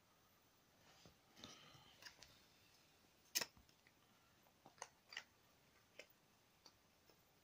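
Faint handling noises of plastic soft-bait packaging: a scatter of light clicks and crinkles, with one sharper click about three and a half seconds in.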